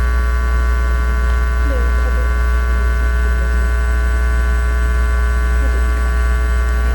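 Loud, steady low electrical hum with a row of steady higher overtones above it, the sound of mains hum in the recording. It runs without change and no other sound stands out.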